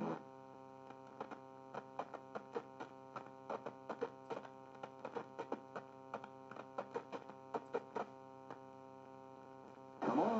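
Steady electrical hum from a TRS-80 Model I's low-fidelity cassette-port audio, with a run of irregular keyboard clicks as a line is typed at a READY prompt in the old film's soundtrack.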